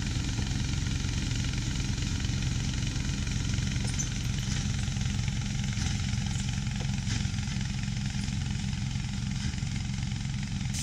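An engine running steadily at constant speed, with a few faint clicks and rattles about halfway through.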